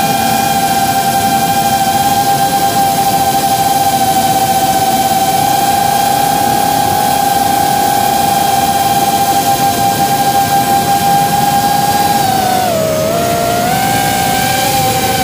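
Brushless motors and propellers of a 3-inch FPV drone in flight, a steady high whine with several overtones. About twelve seconds in the pitch dips as the throttle eases, then climbs back up.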